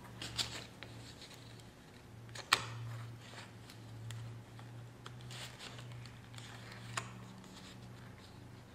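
A knife cutting into a baked muffin on a paper plate: soft scraping and rustling with a few sharp clicks, the clearest about two and a half seconds in and again near seven seconds, over a steady low hum.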